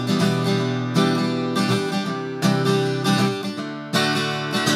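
Steel-string acoustic guitar strummed in chords, with a sharp accented strum about once or twice a second.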